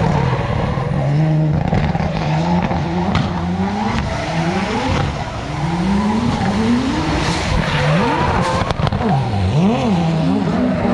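Drift car's engine revving hard in repeated rising pulls, about one a second, as the car slides sideways with its tyres squealing on the tarmac. Near the end the revs swing rapidly up and down as the driver works the throttle.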